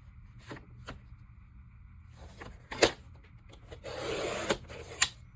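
Paper being cut on a paper trimmer: a few sharp taps and clicks as the sheet is set against the trimmer, the loudest a little under three seconds in, then a brief scraping rasp about four seconds in as the blade is run through the paper to cut it in half.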